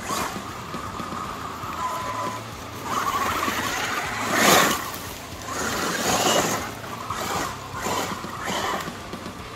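Losi Super Baja Rey 2.0 brushless electric RC truck on 8S power driving over a leafy gravel track in a series of throttle bursts, electric motor and tyres on gravel swelling and fading. The loudest burst comes about four and a half seconds in, as it passes close.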